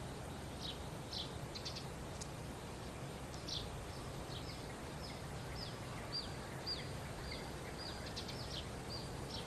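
Small birds chirping: short, high, slightly falling chirps repeated about twice a second, over a faint steady low background hum.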